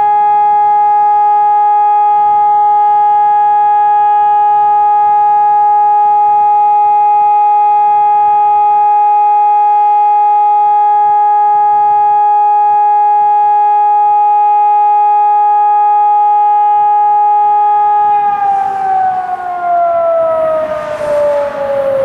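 Electronic ECN 1200 high-performance warning sirens holding one steady continuous tone, the form of the German all-clear (Entwarnung) signal. Near the end the tone begins to slide steadily down in pitch as the sirens wind down.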